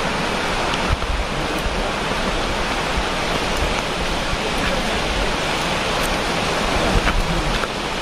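Steady rushing hiss of a waterfall's falling water.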